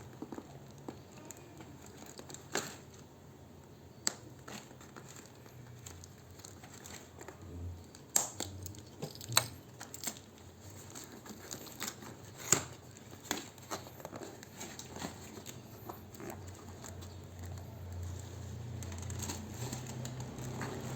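Hands unpacking a smartphone box: crinkling plastic and paper with many scattered sharp clicks and taps, the loudest ones about a third and three-fifths of the way in.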